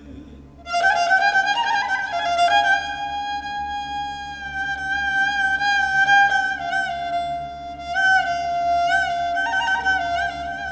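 Kamancha, the Azerbaijani bowed spiked fiddle, playing a solo melodic phrase that enters about a second in, with long held notes and wavering ornaments, over held low notes from the orchestra.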